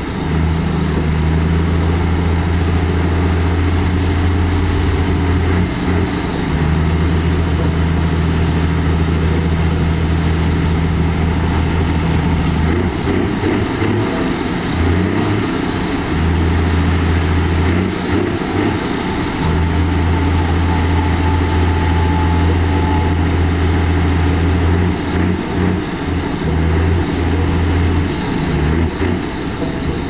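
Heavy diesel engine of earthmoving machinery running with a steady low drone that breaks off briefly several times.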